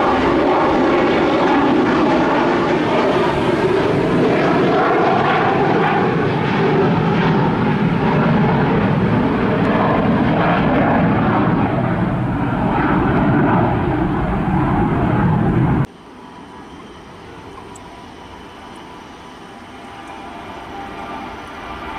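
McDonnell Douglas MD-83's rear-mounted Pratt & Whitney JT8D turbofans running at takeoff power as it climbs out, a loud steady jet engine noise. About sixteen seconds in it cuts off abruptly to a much quieter distant jet engine hum with steady whine tones, slowly growing louder.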